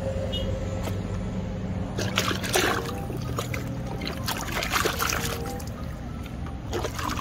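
Muddy water sloshing and splashing in a plastic basin as a plastic toy mask is scrubbed and swished by hand, in a few irregular bursts. Faint background music runs underneath.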